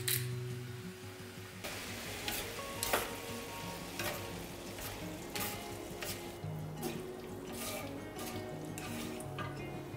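Spaghetti and baby octopus sizzling in oil in a hot skillet while being stirred and tossed, with a utensil clicking against the pan every second or so at irregular intervals. Soft background music plays underneath.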